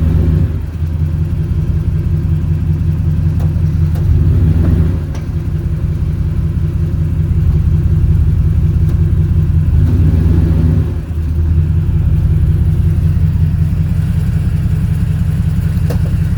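Pickup truck engine running steadily, its level dipping briefly three times, with a few faint knocks, as the truck is worked in drive and reverse to bring out a clunk that the mechanic puts down to a worn universal joint.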